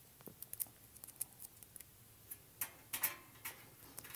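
Light, irregular clicks and taps of a Profitec Pro 500 espresso machine's stainless steel top cover being set in place and handled, with a cluster of louder taps about three seconds in.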